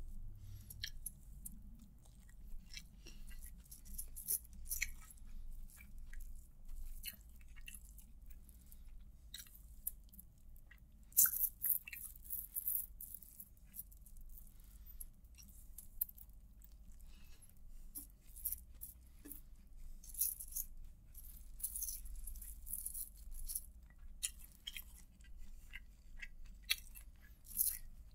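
Fingers scooping fried rice off a clear plastic sheet, the plastic crinkling in quick irregular crackles, louder in clusters, with chewing in between.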